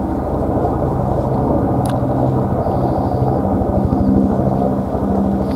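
A steady low engine drone with a constant hum, as of a motor running nearby, and a single sharp click about two seconds in.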